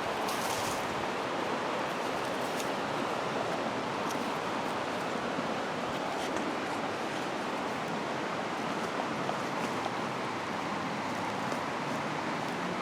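River water rushing: a steady, even rush of flowing water.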